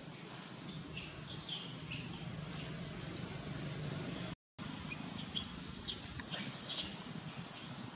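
Outdoor ambience with a steady low hum. After a brief dropout about halfway through, a quick series of short, high-pitched animal chirps and squeaks follows.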